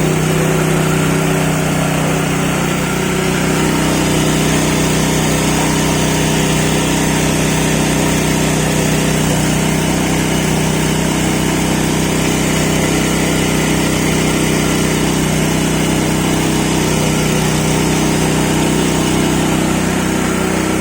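Yasuka mini rice mill running steadily while polishing rice, a constant machine hum with a hiss above it.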